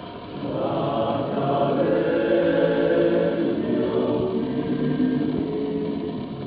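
Male choir singing in harmony. The voices swell in about half a second in and hold long notes, easing off near the end.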